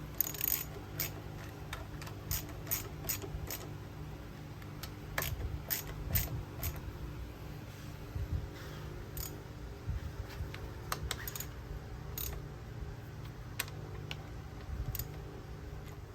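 Irregular light metallic clicks and clinks, about two dozen scattered through, from small metal parts and tools being handled, over a steady low hum.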